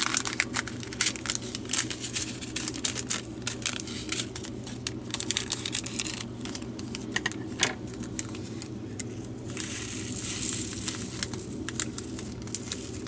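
A small plastic packet of diamond-painting resin drills crinkling as it is handled, with many light, scattered clicks of the drills. About ten seconds in, a short soft hiss as the drills slide out.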